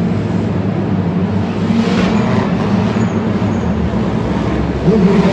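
Engines of several modified four-cylinder race cars running hard together as they race on a dirt track, echoing in an indoor stadium. Near the end one engine revs up and gets louder.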